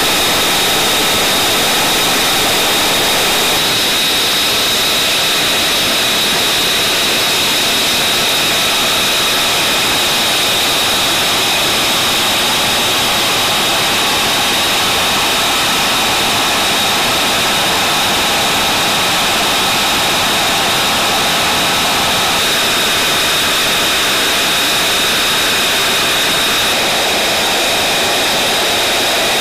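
F-35B Lightning II's Pratt & Whitney F135 turbofan running on the ground, a loud steady jet noise with a high, constant turbine whine over it.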